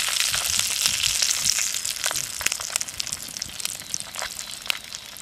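Masala-coated carp pieces shallow-frying in oil in a clay pot, a steady sizzle with scattered pops and crackles. The fish is already well browned. The sizzle is loudest in the first couple of seconds and eases off after about three seconds.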